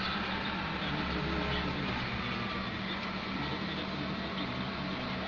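A steady engine running with a low hum under an even hiss of background noise, with no sudden knocks or changes.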